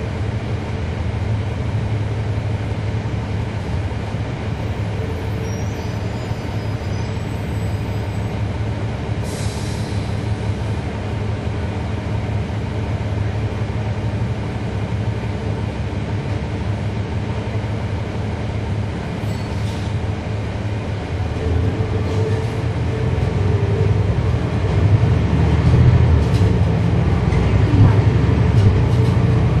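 Cummins ISL9 diesel engine of a 2011 NABI 40-SFW transit bus, heard from inside the bus, running steadily and then growing louder from about 21 seconds in. The ZF Ecolife automatic transmission is nearly silent. A brief hiss comes about nine seconds in.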